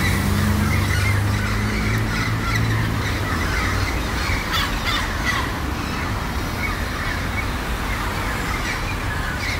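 Many birds calling and chattering outdoors over a steady background noise. A low steady hum runs under it and fades after about three seconds.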